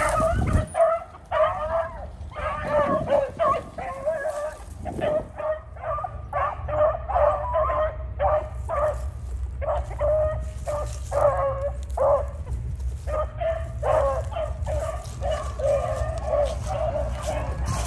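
A pack of beagles baying on a rabbit's track, many short overlapping calls a few times a second: the dogs are running the rabbit by scent.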